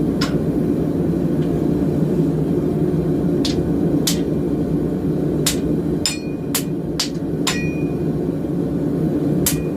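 Hand hammer striking a heated steel bar to bend it round, about nine irregular blows, several leaving a short metallic ring, over a steady low rushing noise.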